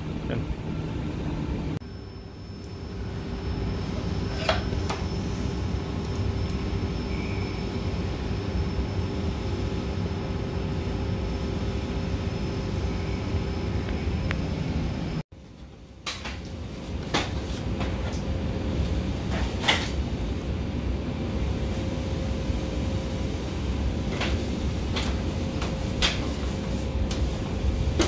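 Steady airflow noise of a running Daikin FTKD50DVM wall-mounted split air-conditioner indoor unit, with a few sharp clicks and knocks. The sound cuts out suddenly for a moment about halfway.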